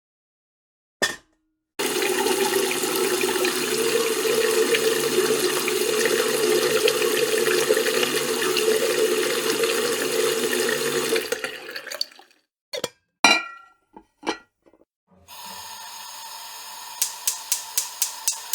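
Tap water running steadily for about ten seconds, then stops; a few knocks follow. Near the end a gas stove's igniter starts clicking rapidly, about four clicks a second, over a steady hiss.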